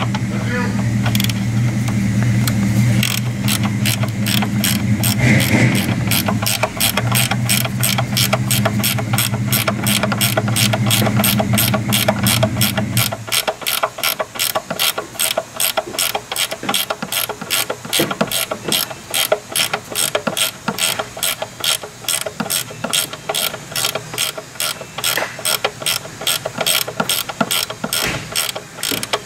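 Ratchet wrench clicking at an even pace, about three clicks a second, as a nut is run off a strut-tower stud. A steady low hum runs under it and cuts off about halfway through.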